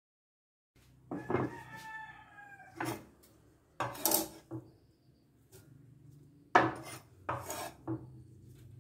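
A knife blade scrapes and knocks on a wooden cutting board as chopped crab stick pieces are gathered and scooped up. There are several sharp taps and short scrapes, the loudest about two thirds of the way in.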